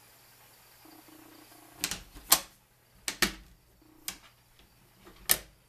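A series of about six sharp clicks and knocks from a wooden reptile enclosure's door and latches being handled as the enclosure is opened.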